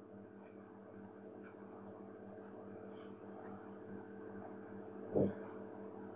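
Quiet room tone: a steady low electrical hum with a faint hiss. A single brief soft thump about five seconds in.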